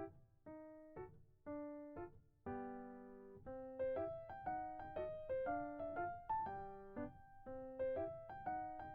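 Light comic background music on piano or electric piano: a bouncy melody of short plucked-sounding notes, about two a second, getting busier a few seconds in.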